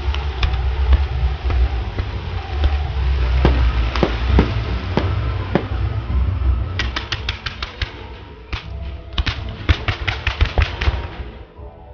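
Musical fireworks display: aerial shells going off over the show's music, with scattered sharp bangs. From about seven seconds in come two quick runs of sharp reports, about eight a second.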